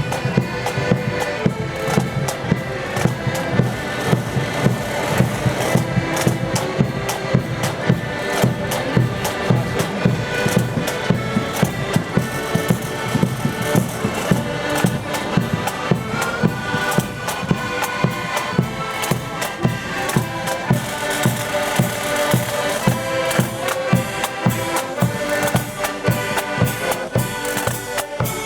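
Marching accordion band playing a march: massed accordions carry the tune in held chords over a steady beat of side drums and bass drum.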